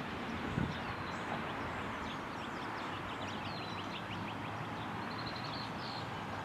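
Small birds chirping and twittering in quick short notes over a steady outdoor background hiss, with a brief low thump about half a second in.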